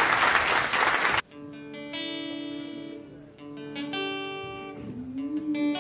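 Audience applauding, cut off abruptly about a second in; then an acoustic guitar plays slow, separate picked chords.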